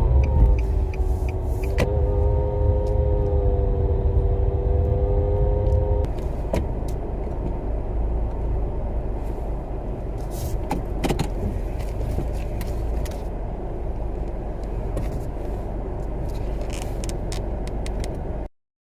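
2007 Nissan Sentra SE-R with CVT automatic running, a strong low rumble with a steady whine over it. The whine stops about six seconds in, leaving the rumble alone. The whine is likely the transmission noise problem the owner sets out to show.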